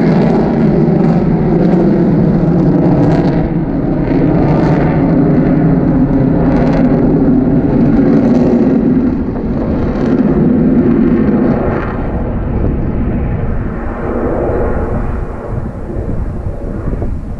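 Jet noise from Blue Angels F/A-18 Super Hornets flying overhead: a loud, steady rumble that eases off about twelve seconds in.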